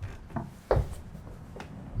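Light rubbing and a few soft knocks from a body shifting on a padded chiropractic treatment table, with the clearest knock about three-quarters of a second in.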